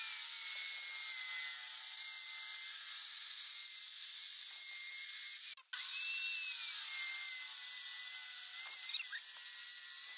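Corded circular saw running and cutting through an 18 mm MDF board, a steady high whine and rasp. It breaks off briefly about halfway through, then resumes.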